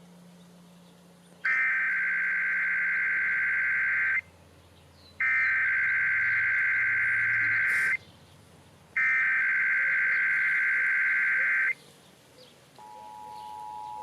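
Emergency Alert System SAME header: three identical screeching digital data bursts, each about two and a half seconds long with a second's gap between them. About a second after the last burst, the steady two-tone EAS attention signal starts. Together they open a Required Monthly Test.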